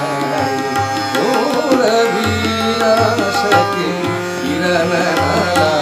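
Instrumental interlude of Indian light-classical accompaniment: tabla strokes, with the bayan's deep bass notes repeating, over a sustained harmonium and tanpura drone with a wavering melody line.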